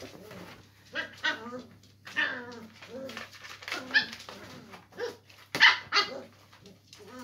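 Springer spaniel puppies barking and yipping in play, a string of short high calls with two sharp barks, the loudest, close together about five and a half seconds in.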